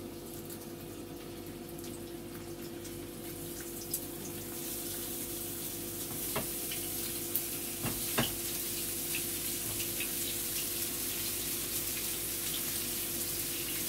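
Köfte meatballs frying in a shallow layer of oil in a pan, the sizzle growing louder about a third of the way in. There are a few light knocks around the middle, over a steady low hum.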